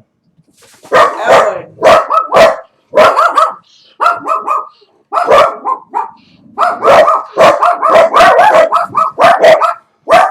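A dog barking repeatedly, in quick runs of several sharp barks with short pauses between them.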